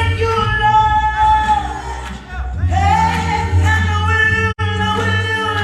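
Gospel worship singing with musical accompaniment, the voice holding long notes over a steady bass. The sound drops out for a split second about four and a half seconds in.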